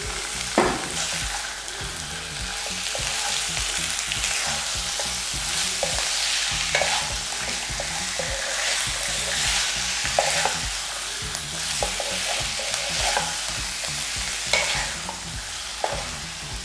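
Marinated chicken pieces sizzling in hot oil in a nonstick kadai, stirred with a wooden spatula that scrapes and knocks against the pan now and then, the sharpest knock about half a second in.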